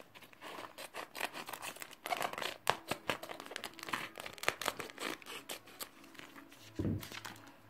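Thin plastic sock of a peeling foot mask crinkling and crackling in irregular bursts as it is handled and pulled onto a foot.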